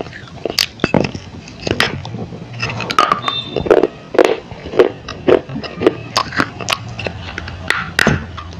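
Dry clay pieces being bitten and chewed right at a clip-on microphone: a run of sharp, crisp crunches, several a second, with mouth noises between them.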